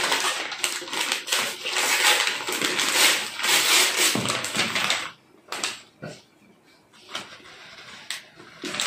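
Brown paper mailer being slit with a knife and torn open: dense crinkling and ripping of paper for about five seconds, then softer, scattered crinkles as the opened mailer is handled.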